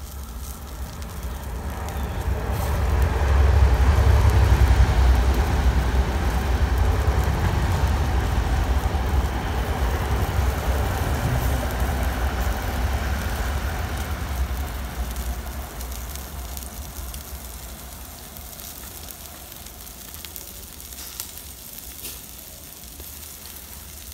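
Charcoal grill under a ham, with fat sizzling and hissing on the hot coals and a deep rumble. The sound swells about two seconds in and dies down after about fifteen seconds.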